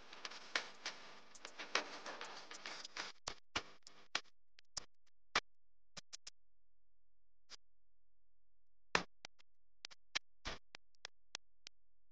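Quiet background music: a sparse electronic track of sharp, irregular percussive clicks, dense in the first three seconds and scattered after that.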